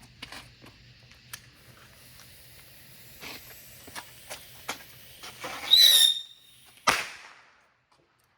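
Small consumer fireworks: scattered light pops and crackles, then a brief shrill whistle-like squeal and a single sharp bang about seven seconds in that fades quickly.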